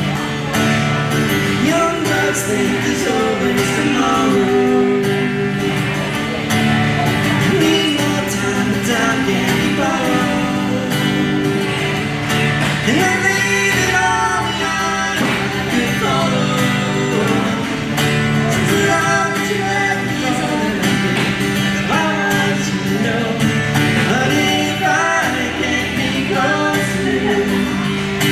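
A band performing a song live: a voice singing over guitar-led instrumental accompaniment.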